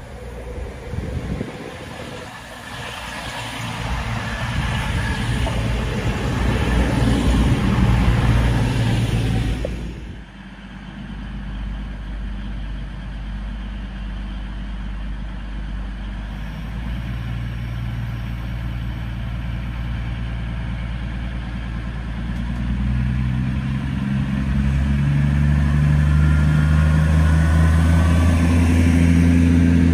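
CrossCountry Class 221 Super Voyager diesel-electric train running into the station with a rising rush of wheel and engine noise. After a sudden drop, its underfloor diesel engines run steadily, then climb in pitch and grow louder near the end as the train pulls away.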